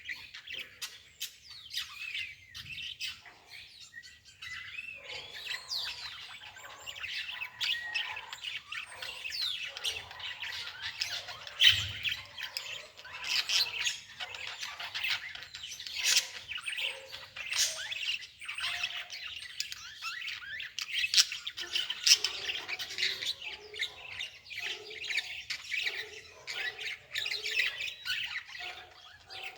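Birds chirping and squawking, many short calls overlapping throughout.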